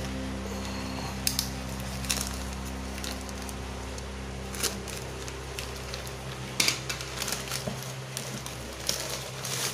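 A black plastic nursery polybag being snipped with scissors and torn open by hand: scattered crinkles and crackles of plastic, some sharper than others, over a steady low hum that fades near the end.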